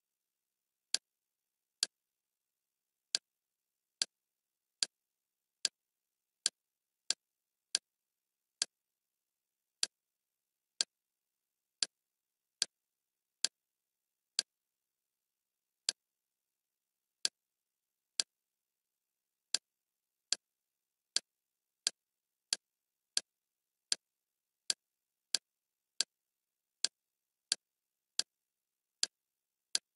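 Kodi's menu navigation sound: a short, sharp click each time the selection moves down one item in the list, at an uneven pace of one to two clicks a second, with dead silence between.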